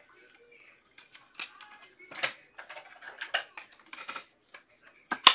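Trading cards and plastic card packaging being handled on a table: irregular light clicks and short rustles, with the sharpest click about five seconds in.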